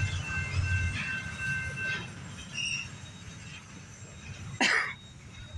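Double-stack intermodal freight cars rolling past, with steel wheels squealing in a few steady high tones over a low rumble that fades after about two seconds as the end of the train goes by. A brief squeal chirp follows, then a short, sharp burst of noise, the loudest sound, near the end.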